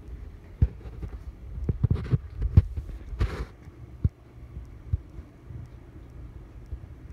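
Handling noise from a handheld phone being carried and turned around a room: a handful of irregular dull low thumps, loudest in the first half, with two short rustles around two and three seconds in.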